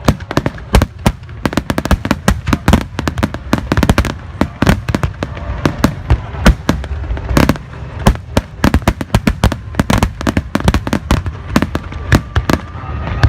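Starmine fireworks barrage: shells bursting in rapid, uneven volleys of sharp bangs, several a second, over a continuous low rumble.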